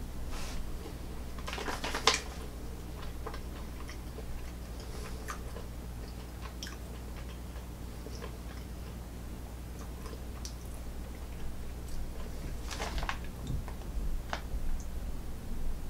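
A person chewing a piece of very dry jerky with the mouth, small irregular clicks and crunches, with a couple of louder crackles about two seconds in and again near thirteen seconds.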